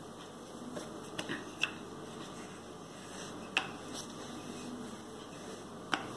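A rolling pin and hands working buttery pastry dough on a countertop: a few light, sharp clicks and knocks over a faint steady hiss.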